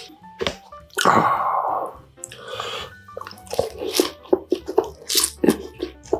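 Close-miked eating sounds of a person chewing: wet smacking clicks throughout, with a loud breathy rush about a second in and a softer one shortly after.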